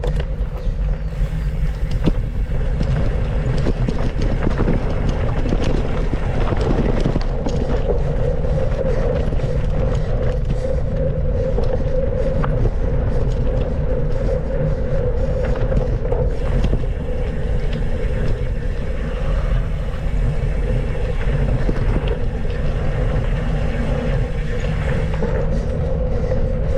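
Mountain bike ridden along a dirt trail: steady wind rush on the microphone with constant fine rattling from the bike.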